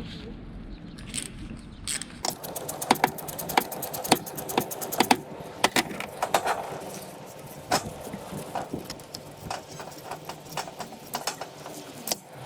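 Sharp metallic clicks and clinks of hand tools on the car's fasteners, with a ratchet wrench being worked, in an irregular run starting about two seconds in.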